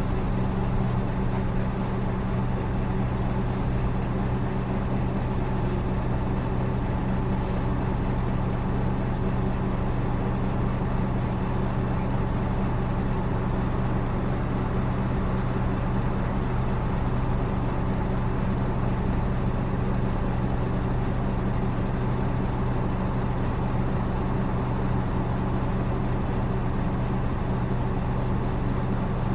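Diesel engine of a Nissan Diesel Space Runner RA city bus (PKG-RA274MAN) idling at a steady, unchanging pitch, heard from inside the cabin. This bus's engine note is said to differ from other buses of the same type.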